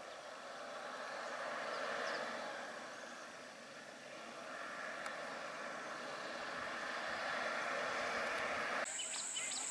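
Bus engine running as the bus drives slowly closer, getting louder over the last few seconds. Near the end the sound cuts abruptly to a high, steady buzz with rapid ticking.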